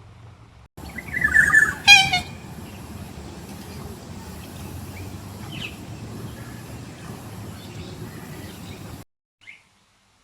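Bird calls: a loud call about a second in, then a short, clearly pitched call just after it. These give way to steady outdoor background noise with a few faint chirps, which cuts off suddenly near the end.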